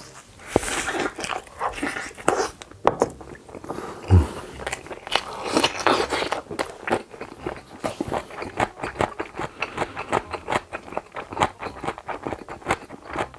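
Close-miked biting and crunching as a mukbang eater chews a crunchy red kimchi vegetable, a rapid run of crisp crunches, with a few hard breaths blown out between bites.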